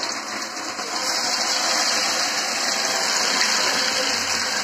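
Battered chicken pakoda pieces deep-frying in hot oil in a kadai: a steady hissing sizzle that grows louder about a second in.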